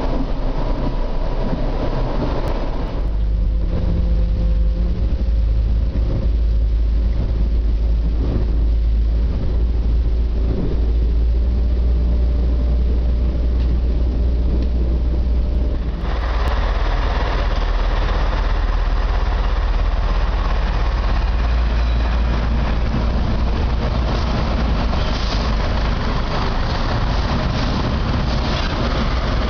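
Nohab diesel railcar running with a steady low rumble and rail noise heard from its driving cab. About halfway through, the sound changes abruptly to the railcar's engine heard from the platform beside it, brighter and fuller.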